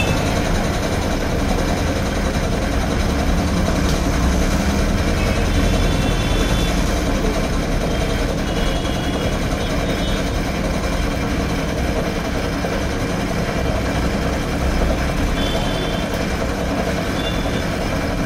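Single-piston air compressor, driven by a 0.5 hp Crompton single-phase electric motor, running steadily as it pumps air into its 40-litre tank, with a fast, even pulsing from the piston.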